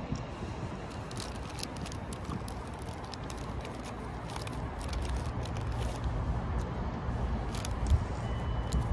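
A CrossCountry Class 220 Voyager diesel train approaching in the distance: a low rumble that grows slightly louder through the second half, with scattered sharp crackles and a faint thin ringing tone coming in near the end.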